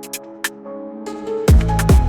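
Electronic dance music with a heavy beat: the deep bass and drums drop out for a short break of held tones, then come back in with deep falling kick-drum hits about one and a half seconds in.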